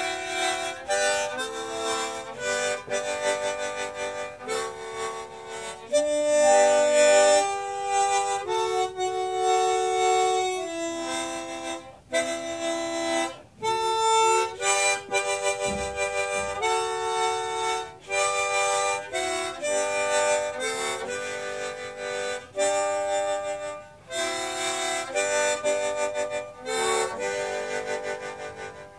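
Instrumental hymn music: a melody in held chords on a reed instrument such as harmonica or organ, with no singing or drums.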